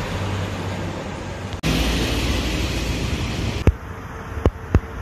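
Street ambience: steady road traffic and wind noise, cut briefly about one and a half seconds in. Near the end it turns thinner, with three sharp clicks.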